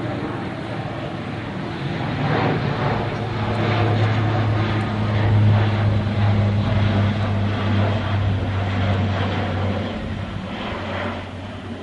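Lockheed C-130J Super Hercules turboprop transport passing low overhead: the deep, steady drone of its six-bladed propellers over the rush of its engines, building to its loudest about five seconds in and easing off near the end.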